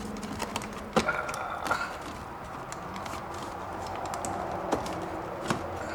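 Scattered light clicks and taps of plastic parts as a headlight switch and its wiring are worked back into the dash, with one sharper knock about a second in.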